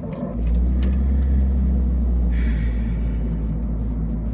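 Low rumble of a car on the move, heard from inside the cabin. It gets louder about half a second in and then holds steady, with a brief hiss near the middle.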